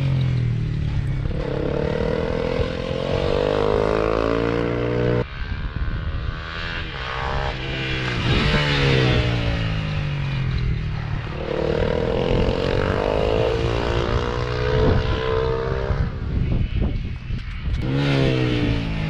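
Honda CBR250R motorcycle engine running while riding, its pitch falling, holding and climbing again as the revs change, over wind and road noise.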